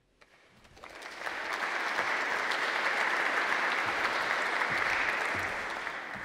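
Audience applauding, swelling in over the first second and dying away toward the end.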